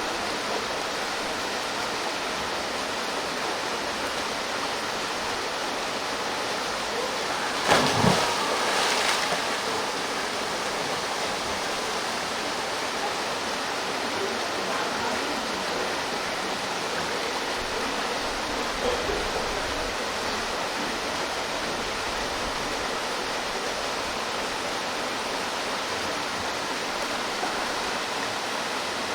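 Steady rush of a mountain waterfall pouring into its pool. About eight seconds in comes one loud splash, typical of a person diving into the water, which fades within a couple of seconds.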